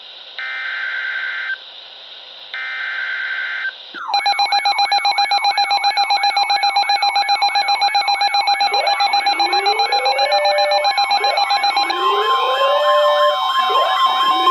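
Emergency Alert System alert: two short bursts of screeching digital header tones about a second apart, then about four seconds in a loud electronic alert tone starts, warbling about four times a second, with rising sweeping tones and further steady tones layered in as it goes on.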